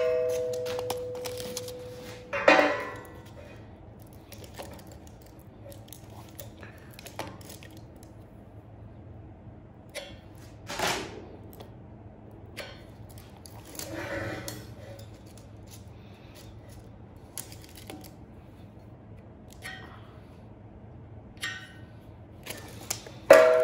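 Steel being handled and struck: a sharp metal clank that rings at a steady pitch for about two seconds, a second clank, scattered light knocks and scrapes, and another ringing clank near the end.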